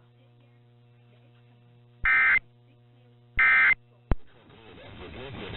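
Emergency Alert System end-of-message data tones: two short, loud, buzzy bursts of SAME digital code about a second and a half apart, marking the close of an Amber alert broadcast. A faint steady hum lies under the start, and a sharp click follows the second burst.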